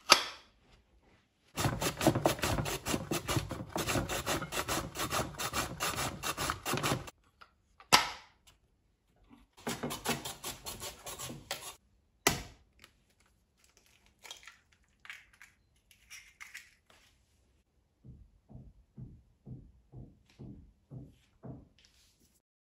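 Courgette drawn rapidly back and forth over a handheld julienne slicer: a long run of quick rasping strokes, then a shorter second run, each ended by a sharp knock. Near the end comes a row of soft taps, about two a second.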